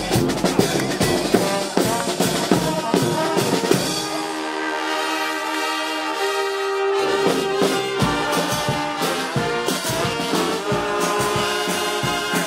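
Live brass band with snare drum, bass drum and hand cymbals playing. About four seconds in the drums drop out and the brass holds sustained chords; about eight seconds in the drums come back in under the brass.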